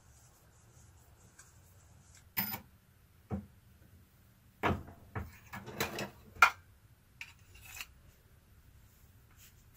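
Steel punches and parts of a coin-ring reducing die clinking and knocking as they are handled and set into the die block. A few separate sharp knocks, then a quick cluster of them, the loudest about six and a half seconds in.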